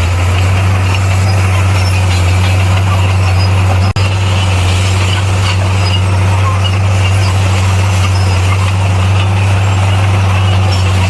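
Bulldozer's diesel engine running steadily with a constant low drone, briefly cut off for an instant about four seconds in.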